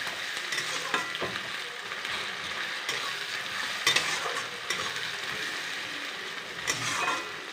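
Sliced onions sizzling steadily in hot oil in a wok, stirred with a spatula that scrapes and taps the pan now and then. The onions are being fried down to crisp brown beresta.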